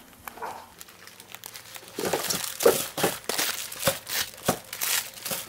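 Individually wrapped toilet paper rolls crinkling and rustling as they are picked up and handled. The crinkling starts about two seconds in and goes on in a quick, irregular run of crackles.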